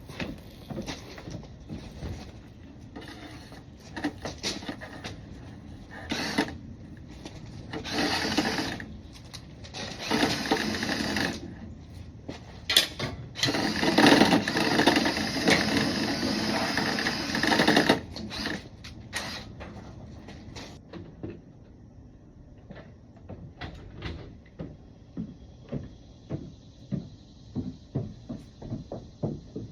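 Dryer vent cleaning work: irregular clattering and knocking, broken by several bursts of mechanical whirring and rushing that each last one to a few seconds. The longest and loudest burst, about four seconds, falls near the middle.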